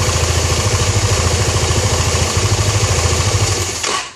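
Kymco Nikita 300 scooter running, its engine and CVT transmission giving a steady, rapidly pulsing mechanical noise, the abnormal transmission noise whose cause the owner has not been able to find. The sound stops abruptly near the end.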